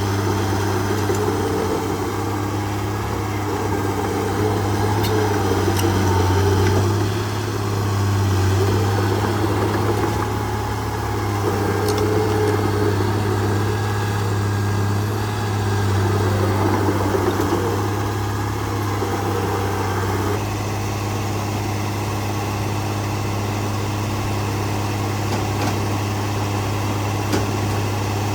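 Heavy diesel engine of earth-moving equipment running, swelling louder several times as it takes load, then settling to a steady run after about twenty seconds.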